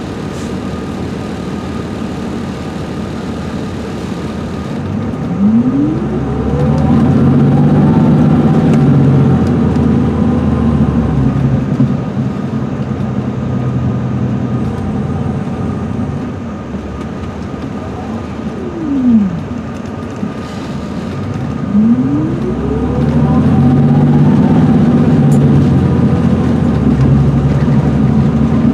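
Cummins ISM inline-six diesel and Allison automatic transmission of an MCI D4500CL coach running under way, heard from inside the bus. The bus pulls harder about five seconds in and again around 22 s, each time with a rising whine. It eases off in between, with a falling whine around 19 s.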